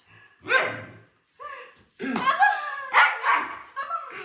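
Young German Shepherd puppy barking in a string of about five or six short, high barks at a man who is pretending to hit its owner: protective warning barks.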